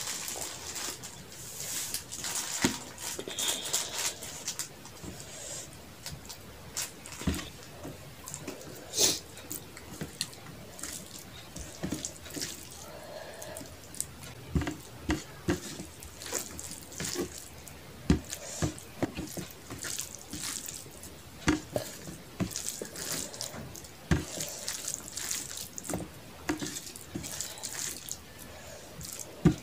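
Close-miked wet eating sounds: fingers squishing and mixing rice with fish curry on a plate, with irregular wet smacks and clicks of chewing. It opens with a drink of water from a glass.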